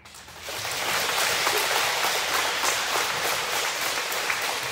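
A large audience of schoolchildren applauding. The clapping starts suddenly, reaches full strength within about half a second, and then holds steady.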